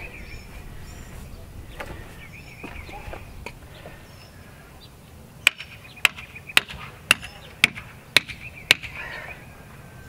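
Seven sharp hammer blows, about two a second, starting about five and a half seconds in: a wooden stake being driven into the ground beside a wooden concrete form frame.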